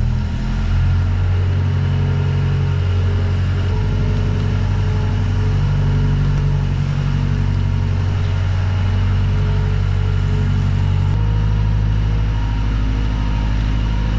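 Wheel loader's engine running steadily while it carries a heavy woodworking machine on its forks, the engine note changing pitch about a second in, again about four seconds in, and again near eleven seconds.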